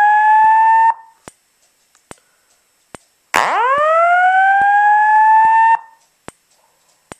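Simplex 4903-9146 fire alarm speaker sounding the slow whoop evacuation tone: a loud tone sweeping upward in pitch for about two and a half seconds and cutting off, heard ending about a second in and then once more in full. Between the whoops, sharp clicks come about once a second from the strobe flashing.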